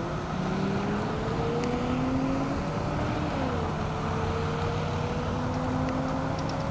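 Steady freeway traffic noise, with one vehicle's engine rising slowly in pitch, falling back about three seconds in, then rising again.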